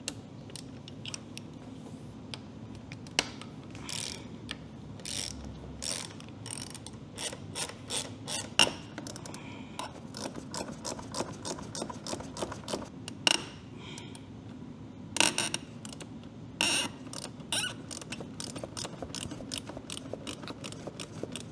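Metal hand-tool clicks and taps, irregular and in quick runs, as Allen keys loosen the pinch bolts on a motorcycle's fork triple clamps.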